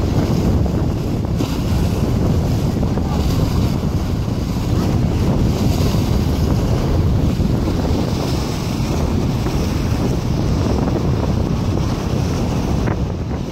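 Strong wind buffeting the microphone, over waves surging and breaking against a seawall.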